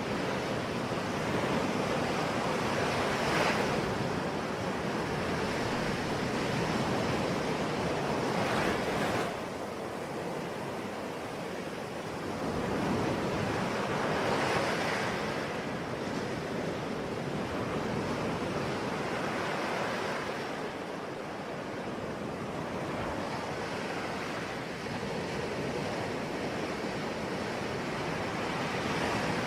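Ocean waves breaking on a shore: a steady wash of surf that swells every five or six seconds as each wave breaks.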